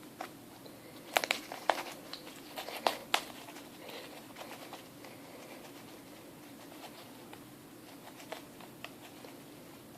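Homemade glue-and-detergent slime being squeezed and stretched by hand, giving a run of sharp clicks and pops in the first few seconds, then only occasional faint ticks.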